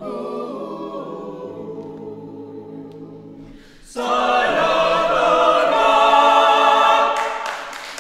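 Mixed a cappella vocal octet singing: a softer phrase, then about four seconds in a loud full chord comes in and is held, and a closing chord fades out near the end of the piece.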